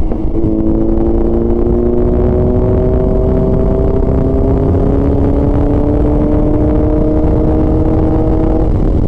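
Motorcycle engine pulling under gradual acceleration, its pitch climbing slowly and evenly for about eight seconds before dropping away near the end, over heavy wind rumble on the microphone.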